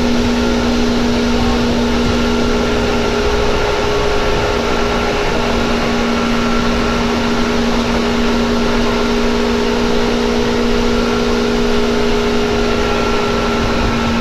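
Loud running sound of a Seibu 2000 series electric train heard from inside the car at steady speed: a steady motor and gear whine over the rumble of wheels on rail.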